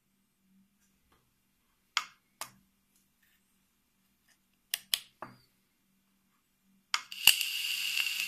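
Plastic clicks of a Geekvape 521 Tab's slide switch being moved, then a click of its fire button and the atomizer's coil sizzling for about two seconds as it heats wet e-liquid, with a steady high whine in the hiss.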